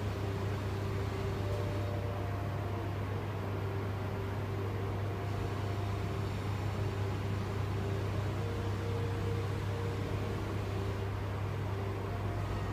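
Steady low hum under an even fan-like hiss: room tone, with faint thin tones that come and go.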